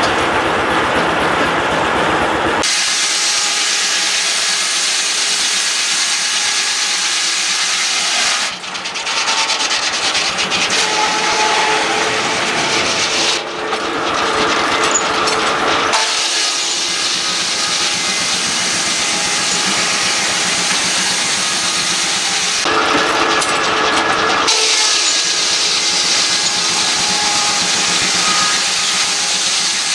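Old-time circular sawmill and the steam engine powering it running, a loud steady hiss-like noise with no distinct beat. The sound shifts abruptly in tone several times.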